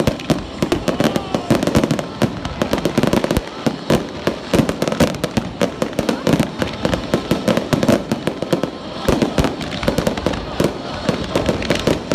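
Fireworks display going off in rapid succession: a dense, unbroken run of bangs and crackles from aerial shells and ground fountains, several reports a second with no pause.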